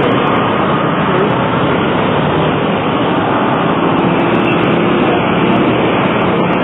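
Steady city street traffic noise: a dense, unbroken wash of passing vehicles' engines and tyres, including motorcycles and cars.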